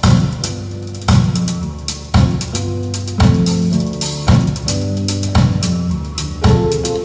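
Drum-heavy music played back through Cabasse active loudspeakers, a big drum hit landing roughly once a second over a steady bass line.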